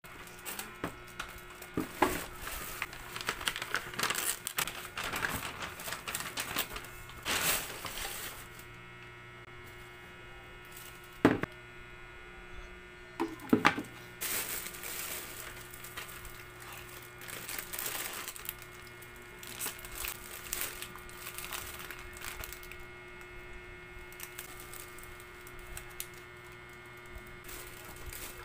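Plastic shopping bag crinkling and rustling as groceries are unpacked, with a few sharp plastic clicks and knocks from handling a plastic pitcher and its lid, over a steady low hum.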